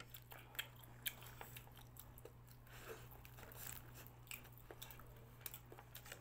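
A person chewing and biting crunchy deep-fried chicken: faint, scattered crunches and small clicks over a steady low hum.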